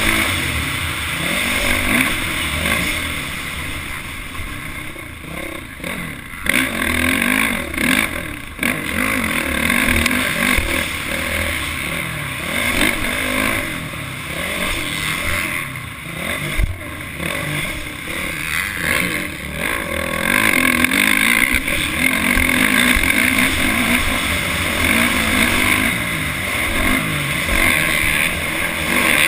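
Motocross dirt bike engine heard from onboard the bike as it is ridden around a dirt track, the revs rising and falling as the throttle is opened and shut, with brief let-offs and the loudest running in the last third.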